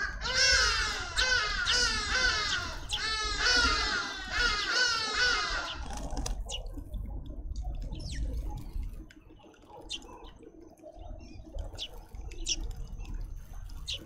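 Grey-headed sparrow fledglings begging for food: a rapid, repeated run of chirps, each falling in pitch, for about six seconds, then only a few scattered single chirps.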